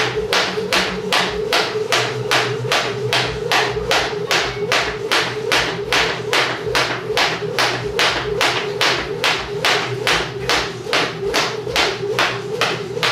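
Heavy 1 1/4 lb weighted jump rope slapping the floor on every turn, a steady rhythm of about three slaps a second.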